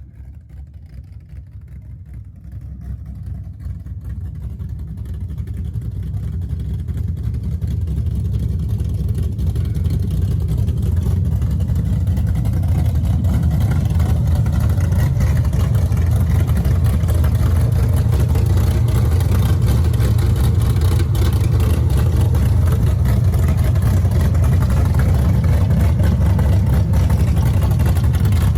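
Big-block Chevy V8 engine running with a deep, low rumble. It grows louder over the first ten seconds or so, then holds steady.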